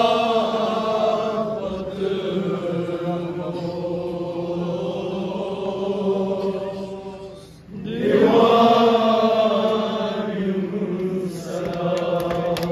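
A man chanting a nauha, a Shia mourning elegy, through a microphone: two long, drawn-out lines on a steady pitch, with a short break for breath at about eight seconds. Sharp slaps start near the end.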